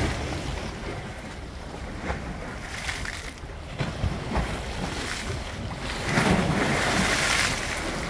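Sea waves washing against shoreline rocks, swelling into a louder surge of splashing water about six seconds in, with wind rumbling on the microphone.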